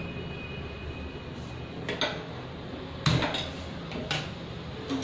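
A few separate metallic clinks and knocks from a steel pan, ladle and gas stove as the burner is being turned on, over a steady low hum.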